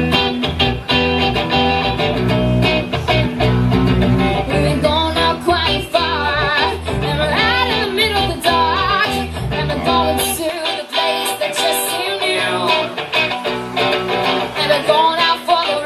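Live amplified band music: two electric guitars playing while a woman sings. The heavy low notes drop out about two-thirds of the way through.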